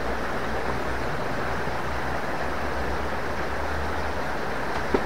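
Small river rushing steadily over rocks below a bridge, an even, unbroken hiss of water. A single short click near the end.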